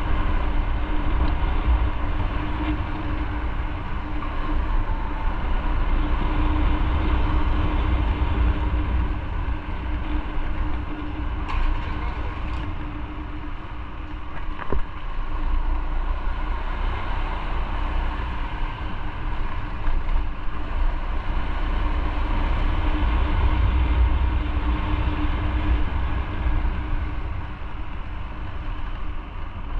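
Motorcycle engine running steadily while riding, with a constant low rumble and a steady hum. A few faint clicks come about halfway through.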